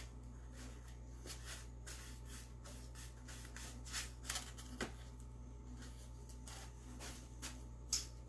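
A large paintbrush sweeping wet chalk paint over a styrofoam pumpkin: faint, irregular brush strokes rubbing on the foam, with a few louder strokes about four and eight seconds in.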